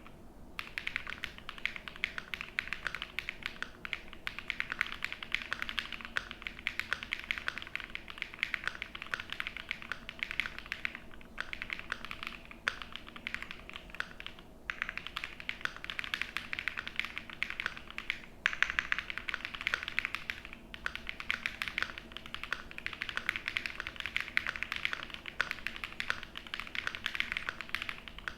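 Continuous fast typing on a Noir Z2 mechanical keyboard with lubed Aflion Blue Sky switches, a PC plate, Poron gasket mount, full foam and Noir Luminous keycaps. The keystrokes come in a dense, steady stream, broken by a few short pauses.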